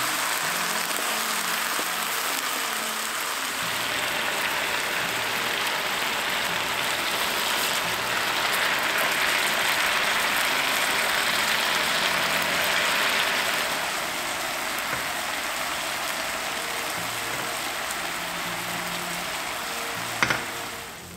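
Soy-based sauce sizzling and bubbling in a hot frying pan as it reduces around pan-fried tofu and sliced shiitake mushrooms, growing louder for a few seconds midway and then easing. Near the end a wooden spatula knocks once against the pan.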